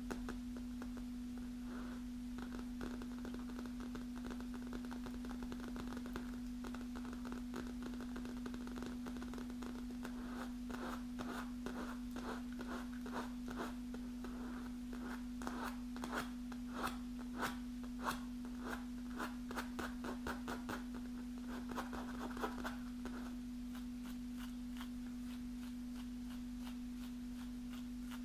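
Long natural fingernails tapping and scratching on a padded manicure armrest cushion: a quick patter of clicks that grows busier and louder midway and stops a few seconds before the end, over a steady low hum.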